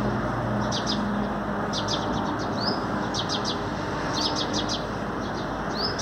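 Small birds chirping in short bursts of rapid high notes, about six times, one with a quick rising sweep: a male sunbird singing, with house sparrows chirping. A steady low hum runs underneath.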